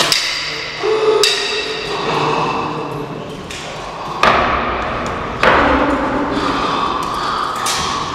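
About five separate hammer blows on the wooden cross, irregularly spaced, each ringing out with echo: staged nailing in a crucifixion scene.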